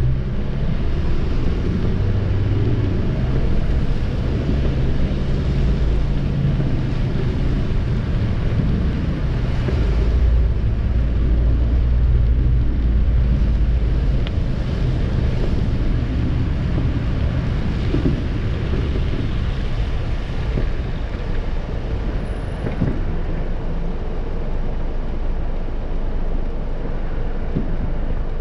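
Car cabin noise while driving on a wet street: a steady low engine and road rumble with the hiss of tyres on wet pavement. The rumble is heaviest about a third of the way in and eases somewhat after that.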